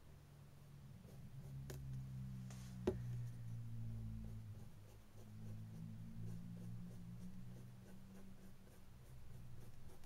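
Faint strokes of a fine paintbrush on a painting panel, over a low steady hum, with a single sharp click about three seconds in.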